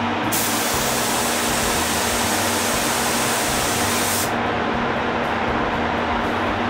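Spray booth extraction fans running with a steady noise and a low hum. About half a second in, a gravity-feed spray gun is triggered and gives a sharp hiss for about four seconds as it is blown through during cleaning, then cuts off.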